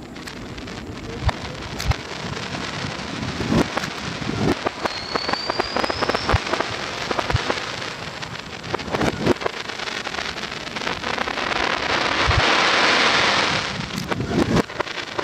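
Aerial fireworks played backwards. Dense crackling like heavy rain, scattered bangs that swell up and cut off sharply, and a short whistle rising in pitch about five seconds in. The crackle is densest and loudest about twelve to fourteen seconds in.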